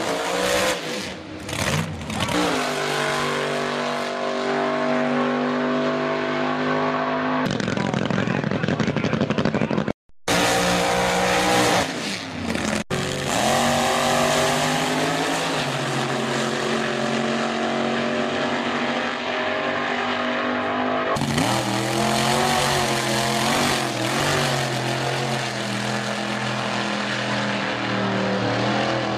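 Drag racing car engines in several edited runs one after another: a loud engine holding a steady note, a sudden full-throttle launch about seven and a half seconds in, then after a short break more cars running hard, and from about two thirds of the way through another loud engine holding a steady note.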